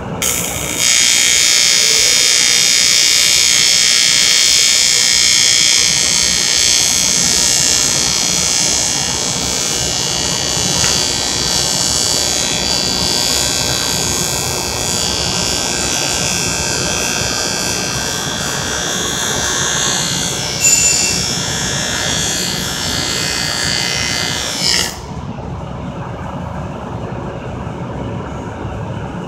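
TIG welding arc running on metal tubing: a steady hiss with thin steady tones in it that starts just after the beginning and cuts off sharply about 25 s in, when the arc is broken. A lower shop rumble continues underneath and after.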